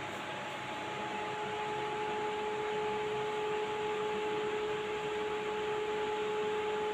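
Steady hum with two constant held tones over an even hiss, unchanging throughout: an electrical appliance or small fan running in a small room.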